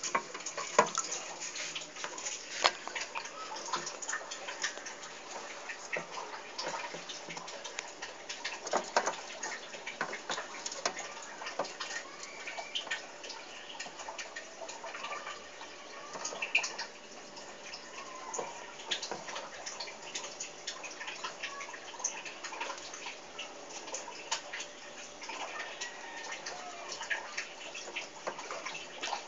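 Water in a red-eared slider's tank trickling and splashing, with irregular small clicks and taps throughout, a few louder ones near the start.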